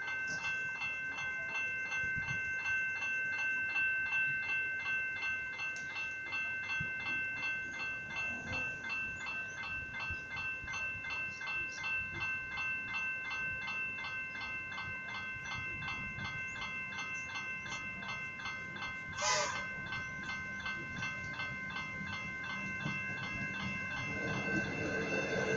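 Railway level crossing warning bells ringing in a rapid, steady, repeated pattern while the boom gates are down. There is one short, sharp sound about 19 seconds in. Near the end an approaching electric suburban train adds a rising rumble.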